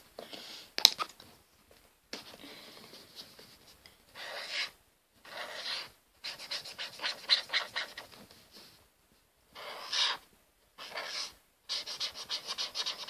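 Pen scratching on paper while colouring in small hearts, in bursts of rapid back-and-forth strokes with short pauses between them. A sharp tap about a second in.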